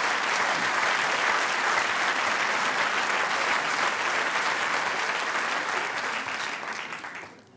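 Audience applauding, fading away near the end.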